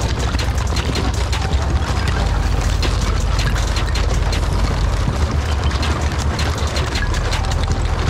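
Honda Pioneer 1000 side-by-side driving through a shallow pond, its tyres churning water and breaking thin ice, with many sharp cracks and clicks from the ice over a steady low rumble.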